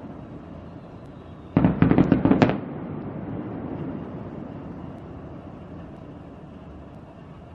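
Aerial fireworks bursting at a distance: a rapid string of about six sharp cracks about a second and a half in, followed by a low rumbling echo that slowly fades.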